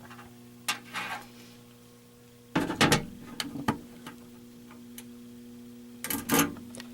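A few scattered knocks and clicks over a steady low hum; the loudest group comes about three seconds in and another pair near the end.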